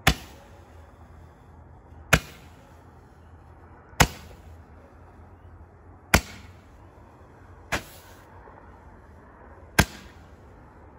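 Roman candles held in a rack firing their stars, six sharp pops about two seconds apart, each followed by a short hiss; the fifth pop is weaker than the others.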